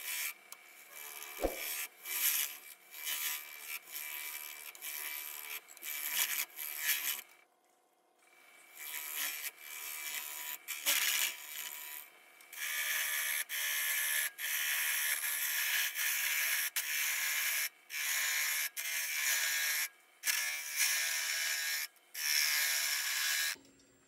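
Turning tool cutting a resin blank spinning on a wood lathe, roughing it toward a sphere: a scraping hiss in repeated passes, short and broken in the first half, then longer, louder passes with brief breaks, stopping just before the end. A single knock about a second and a half in.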